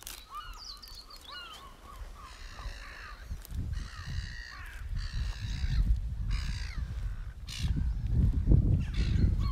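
Crows cawing, a run of harsh calls about one a second, after a few short higher bird calls at the start. A low rumbling noise grows louder through the second half.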